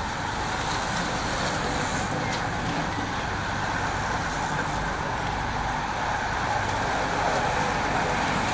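A pack of road-racing bicycles riding past, tyres and drivetrains whirring in a steady rushing noise with a low rumble underneath.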